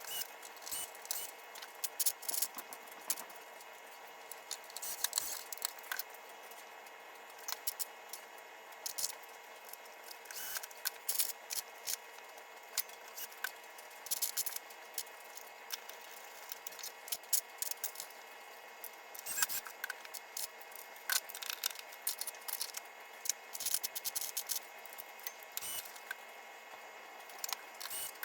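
Rapid, sped-up clicking, clattering and rattling of hand tools and small metal parts being handled while a pinball playfield is reassembled, over a faint steady hum.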